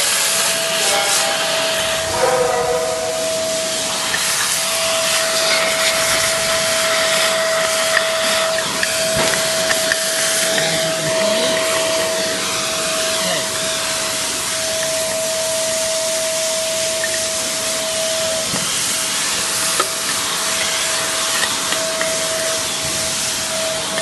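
Swarf vacuum running steadily with a constant high whine and hiss, its nozzle sucking metal chips off a machine tool's bed, with a few scattered sharp ticks.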